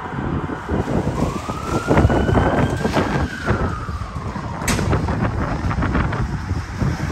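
Emergency vehicle siren wailing over heavy street traffic: one slow rise and fall in pitch, with a sharp knock about two thirds of the way through.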